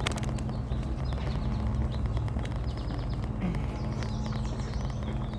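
Small songbirds singing: several short runs of quick, repeated high notes over a steady low rumble.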